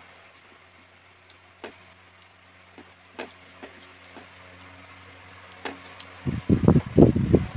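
Someone eating with her fingers from a ceramic plate: a few light clicks over a steady low hum, then from about six seconds in, loud close-up chewing and mouth sounds in quick irregular bursts.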